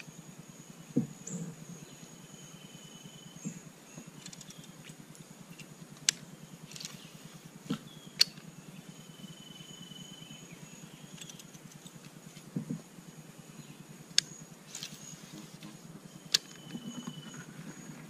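Steady high-pitched insect drone from the riverside forest, with sharp clicks and knocks from a rod and baitcasting reel being handled in the boat, and three short, steady higher tones.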